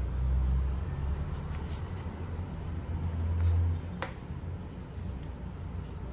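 Hands handling Blu-ray packaging: dull low bumps and light clicking, with one sharp click about four seconds in.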